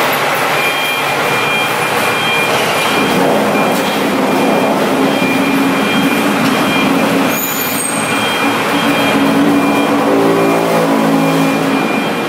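700 kW Ricardo diesel generator set running with a loud, steady engine noise. A faint high whine comes and goes, and a lower hum grows stronger about three seconds in.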